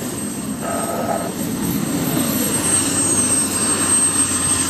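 Military helicopter turbine running: a steady engine rush with a thin, high, steady whine, and a fainter whine that falls in pitch about halfway through.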